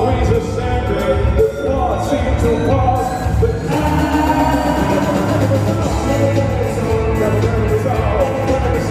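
Rock band playing live: singing over electric guitar, keyboards, bass and drums, heard from the audience in a large hall.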